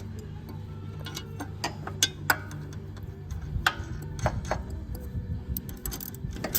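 Irregular sharp metal clicks and taps from bolts and hand tools being handled while a new mower blade is fitted, over a steady low hum.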